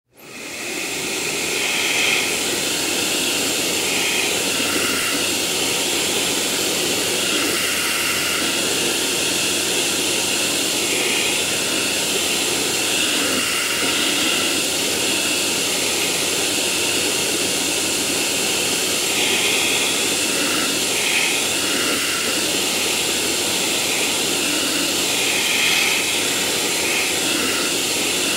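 Vacuum cleaner running. It comes up to full speed within about the first second, then runs steadily with a rushing airflow and a high whine that wavers slightly.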